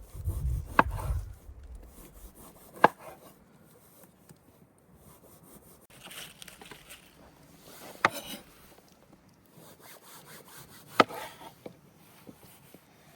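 Something rubbing and scraping against wood, with a dull thud at the start and four sharp knocks spaced a few seconds apart.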